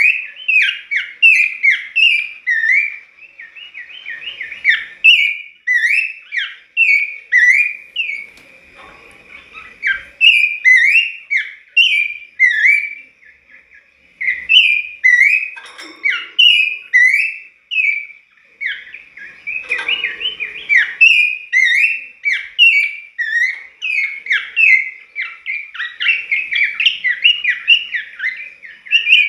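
Pelanduk semak (Horsfield's babbler) singing persistently: a rapid run of short, clear whistled notes, several a second, broken by a few brief pauses.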